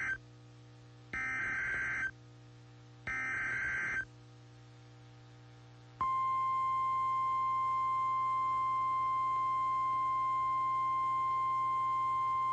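NOAA Weather Radio SAME alert header: the tail of one data burst, then two more one-second bursts of warbling digital tones a second apart, encoding the coming alert. About six seconds in, the steady 1050 Hz warning alarm tone starts and holds, signalling that a warning message follows.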